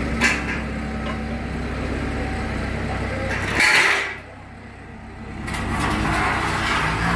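An engine running steadily, with a few knocks and a loud clatter about halfway through; the sound then drops away for about a second and a half before the engine note comes back.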